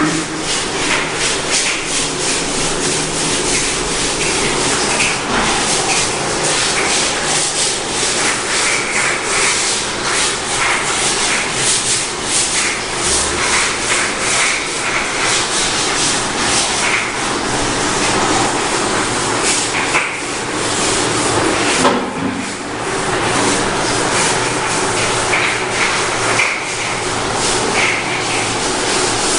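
Continuous rubbing and scratching handling noise from a camera microphone brushing against cloth, made of many quick scrapes, with a short break about two-thirds of the way through.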